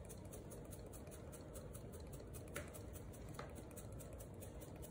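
Faint, steady room hum with two light clicks, about two and a half and three and a half seconds in.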